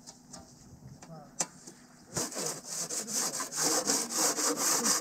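Gloved hand rubbing across a dusty pane of old window glass. It starts about two seconds in as a fast run of scraping strokes, after a single light click.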